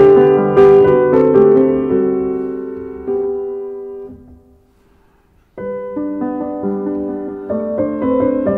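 Solo piano background music. The notes fade away to near silence about four seconds in, and about a second later the piano starts again abruptly.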